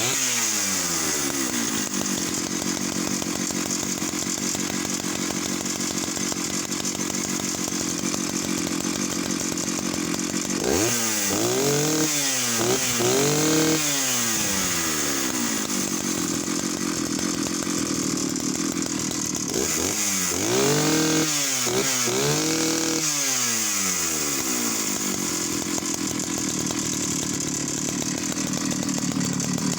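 Vintage Jonsereds 751 two-stroke chainsaw, just started and freshly rebuilt, running. Its revs drop to a steady idle at the start. It is blipped up to high revs a few times around ten seconds in and again around twenty seconds in, coming straight back down to a steady idle each time.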